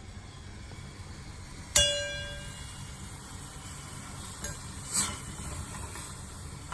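A single metallic clink, like a spoon or utensil striking a cooking pot, rings briefly and fades over about a second. A couple of softer knocks or scrapes follow about three seconds later, over low kitchen background noise.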